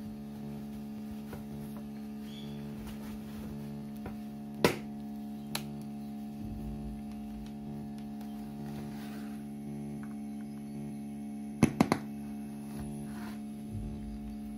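Steady electrical mains hum from a homemade speaker's amplifier in AUX mode. Sharp clicks come through about four and a half seconds in and as a quick run of three near the end, as the aux cable's plug is pushed into the jack and handled.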